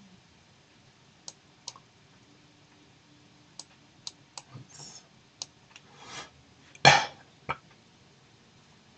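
Scattered clicks of a computer mouse, about seven over the first six seconds, then a person coughing near the end: one loud cough followed by a shorter one.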